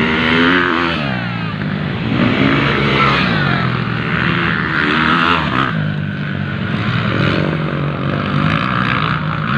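Motocross dirt bike engines revving up and down, the pitch rising and falling over and over as the riders open and close the throttle and shift gears.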